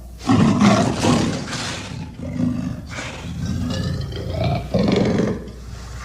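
Werewolf creature sound effect: a loud, rough, throaty vocalisation starts about a third of a second in and lasts about a second and a half. It carries on more quietly, then a second loud burst comes about five seconds in.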